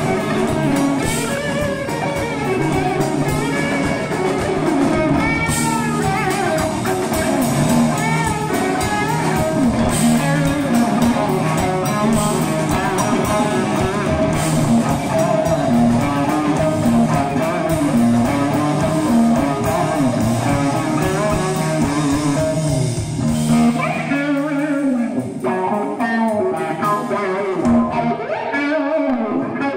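Live rock band: electric guitar playing lead lines over drums and bass. Around 24 seconds in the low end drops away briefly, leaving the guitar more exposed, before the band comes back in.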